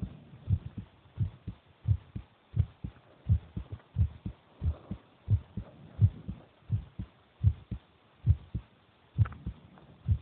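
A human heartbeat, amplified, beating steadily at a little over one beat a second. Each beat is a low double thump, a strong lub closely followed by a weaker dub.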